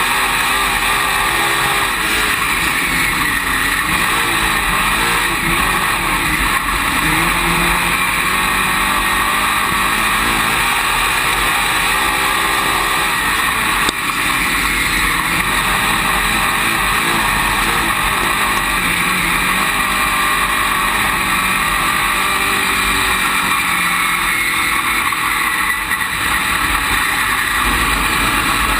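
Dirt late model race car's V8 engine at racing speed, heard from inside the cockpit. Its revs rise and fall repeatedly over a constant rush of wind and track noise.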